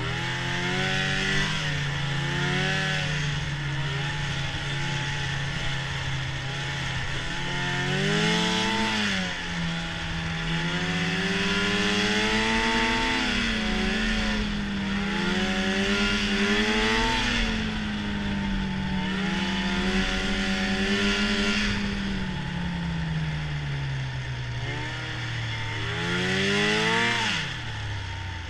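Arctic Cat snowmobile engine running at speed, its pitch climbing and falling again and again with the throttle, with a quick rev and drop near the end.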